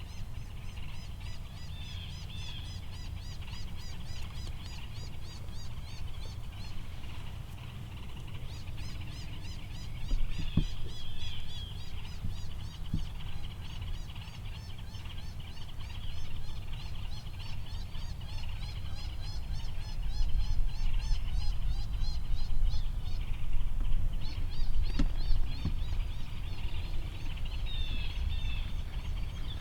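Prey distress sound from an electronic predator call: a long run of high, bird-like chirps and squeals over a low rumble.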